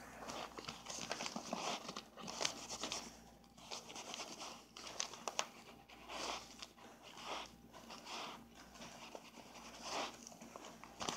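Thin plastic dryer tube crinkling and rustling in irregular bursts as a ferret scrabbles about inside it and a hand plays at its mouth.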